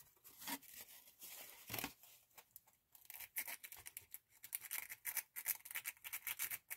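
Sandpaper scrubbing the corrosion off a camera flash's battery contact tab, a dry scratching. A few separate strokes come first, then from about halfway through quick back-and-forth strokes, several a second.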